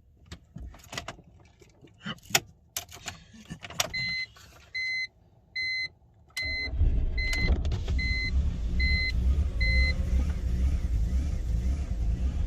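Clicks and knocks, then a two-tone chime beeping about eight times in a steady rhythm while the 2004 BMW 325i's inline-six engine is started about six seconds in and runs at idle. The owner reports the engine idling rough and stalling.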